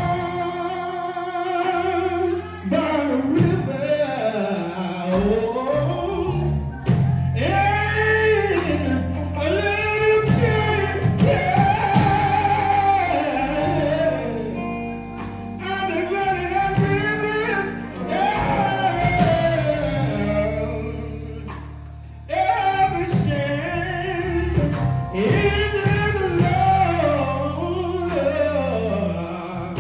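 Male gospel singers performing live with a band of keyboard, electric guitars and drums; the lead voice holds long notes that slide up and down over the steady accompaniment.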